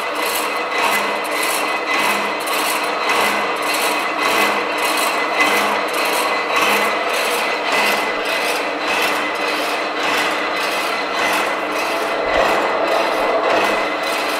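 Peerless Mechan-i-Cut heavy-duty power hacksaw cutting through a large pipe, the blade rasping back and forth in an even rhythm of about one stroke a second.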